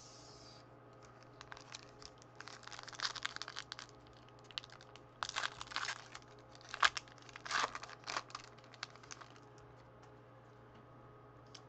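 Foil trading-card pack wrapper being torn open and crinkled by hand, in irregular bursts of crackling for several seconds, sharpest about seven seconds in.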